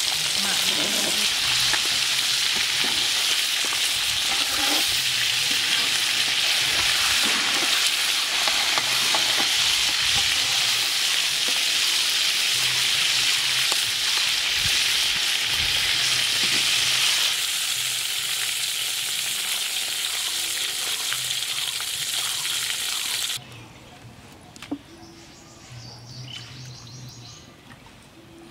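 Hot oil sizzling steadily in an iron karahi as pieces of walking catfish and then vegetables fry, with a slotted ladle stirring. The sizzle stops abruptly about three-quarters of the way through, leaving a much quieter sound with one sharp knock.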